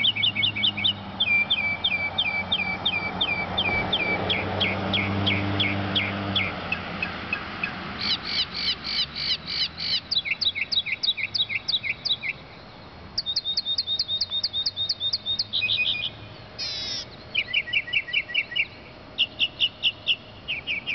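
Northern mockingbird singing through its repertoire: a string of different phrases, each a rapid series of the same note repeated several times a second, switching to a new phrase every one to three seconds. A low drone sits underneath for the first six seconds or so.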